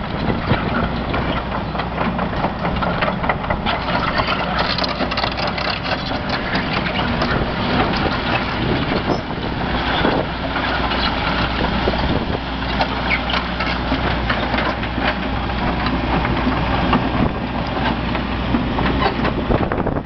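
The diesel engine of a 2009 Hitachi Zaxis 130LCN tracked excavator running steadily with a constant low hum. Scattered clanks and knocks are heard throughout.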